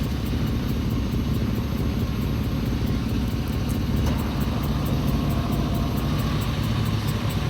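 An engine idling steadily, a low, even rumble.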